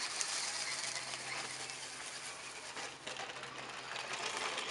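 Small electric motor of a remote-control amphibious rover car whirring steadily as it drives.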